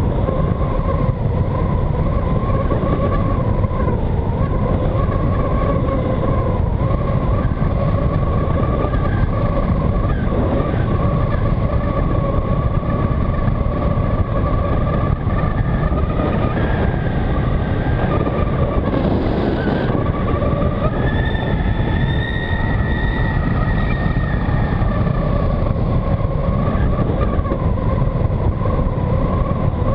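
Electric motor and propeller of a Skywalker FPV model plane running steadily, heard through the onboard GoPro as a wavering whine under heavy wind rush on the microphone. A higher whine joins for a few seconds past the middle.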